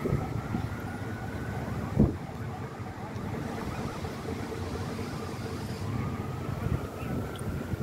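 A siren wails faintly, its pitch slowly rising and falling twice, over a low steady rumble. A single thump comes about two seconds in.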